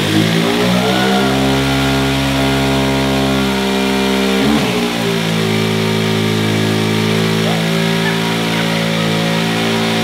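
Honda CG 125 Today's single-cylinder four-stroke engine revved up and held at high revs on its stand, the rear wheel churning pool water into a spray. The revs dip briefly about four and a half seconds in, then climb and hold again.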